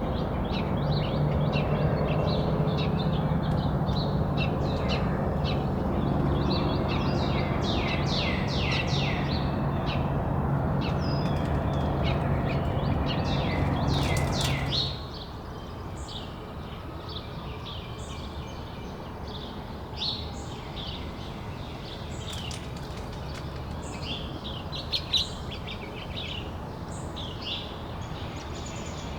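Several small songbirds chirping and calling in quick, overlapping notes throughout. Under them, a steady low hum runs for the first half and cuts off abruptly about halfway through, leaving the chirps over a quieter background.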